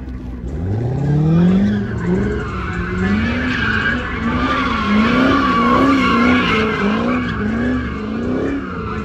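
Chevrolet Corvette V8 revving hard while its rear tyres squeal and smoke through donuts. The revs climb steeply in the first two seconds, then rise and fall about once a second over a continuous tyre squeal.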